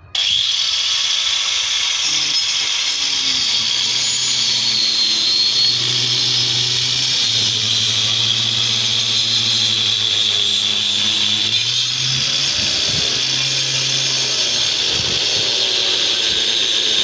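Electric power tool switched on abruptly and running steadily, with a strong high whine over a lower hum that shifts slightly in pitch.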